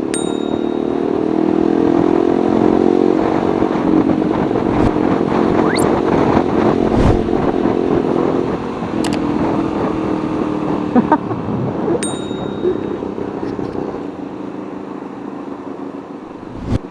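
Motorcycle with an Akrapovic aftermarket muffler running while being ridden in heavy traffic, its exhaust note steady with a slight rise and fall in pitch. Traffic noise with scattered clicks, and two short high beeps, one near the start and one past the middle.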